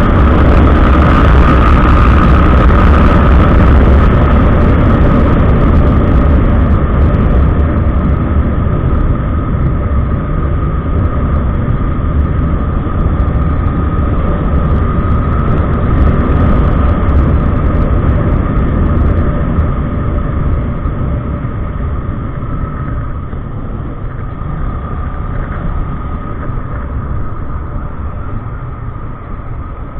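Kawasaki ER-6n's parallel-twin engine running under way, mixed with heavy wind rush on the action camera. A steady tone runs through it, and the sound grows quieter over the last ten seconds or so.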